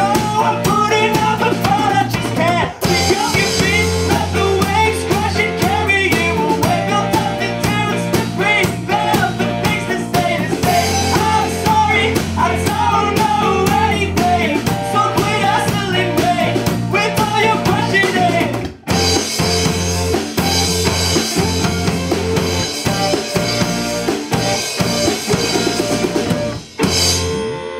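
Live rock band playing full out: drum kit, amplified electric guitars and bass, with a singer. About two-thirds through the band drops out for a moment and comes back in with crashing cymbals, and near the end the song draws to its close.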